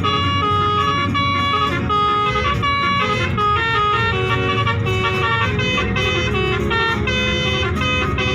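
Indonesian bus 'telolet' multi-tone horn playing a quick tune of stepped notes, one after another, over a steady low rumble.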